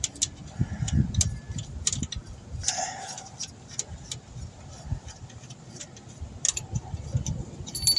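Scattered light metallic clicks and taps from a bolt being unscrewed by hand on the refrigerant line fitting of a 2010 Honda CR-V's AC compressor, over a low rumble.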